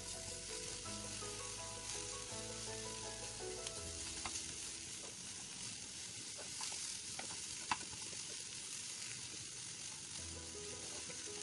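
Chopped cabbage and moong dal sizzling in hot oil in a pan while being stirred with a slotted spatula, with a few sharp taps and scrapes of the spatula against the pan, the loudest about two-thirds of the way in.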